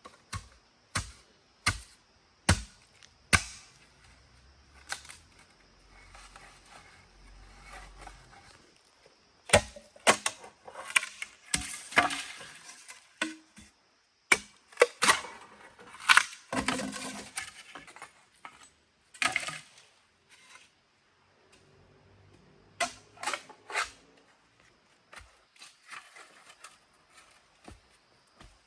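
A series of sharp, irregular knocks and cracks, some in quick clusters, with short scraping and rustling sounds between them.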